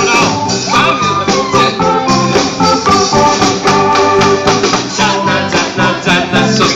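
Music: a song with organ-like keyboard chords over a steady beat.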